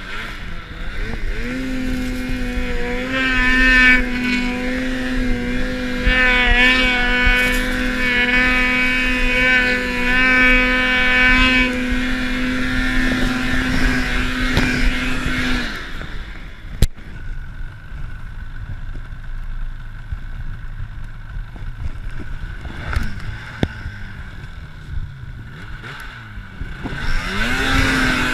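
Arctic Cat M8000 snowmobile's two-stroke twin held at high, steady revs for about fourteen seconds while the track spins in deep snow, trying to dig the stuck sled out. It then drops back, and the revs sink and climb again near the end.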